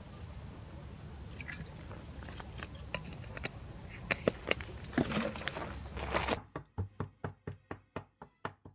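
Dry herb stems crackling and snapping as sprigs are picked by hand into a plastic container, over a low outdoor rumble, with the crackles loudest after about four seconds. About six seconds in this gives way to a quick run of evenly spaced clicks, about five a second, growing fainter.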